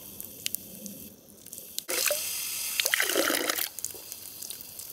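Outdoor tap running a thin stream of water onto a wire grill grate, with dripping. About two seconds in, a louder rush of water lasts nearly two seconds, then it settles back to a trickle.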